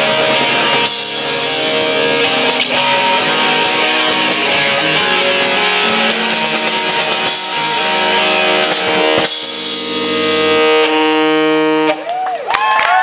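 Live rock band playing, with electric guitars and a drum kit. The drums stop about eleven seconds in and the song ends on a held final chord. A rising shout, like the start of cheering, follows just before the end.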